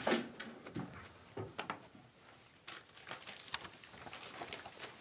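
Soft scattered footsteps and light rustling as a man walks in and sits down in an upholstered chair.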